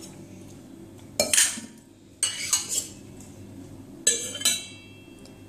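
Stainless steel spoon clinking against steel bowls while scooping curd, in three bouts of clinks about a second apart, the last with a brief metallic ring.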